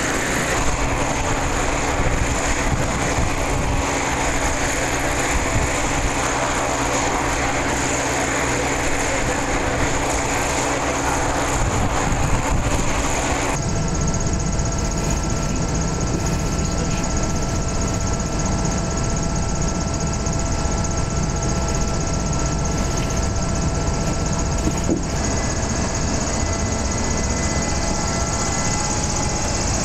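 Goodyear Blimp's piston engines and propellers running steadily. Near halfway the sound changes to the cabin drone heard inside the airship, with a steady low rumble and several thin whining tones over it.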